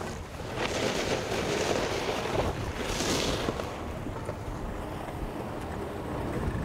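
Skis sliding over packed snow, a swishing hiss that swells for about three seconds with a sharp scraping skid about three seconds in, then dies down under a low wind rumble.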